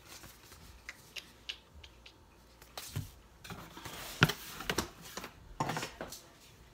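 Unpacking and handling noises: scattered light knocks and clicks with some rustling as items and packaging are moved about on a kitchen counter, the firmest knocks a little past the middle.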